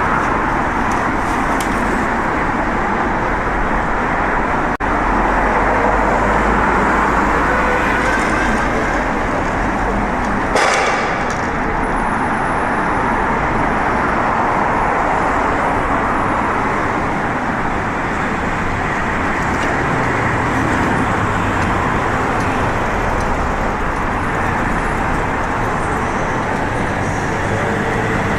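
Steady city street traffic noise, with a brief louder hiss about ten seconds in and a low engine hum in the last third.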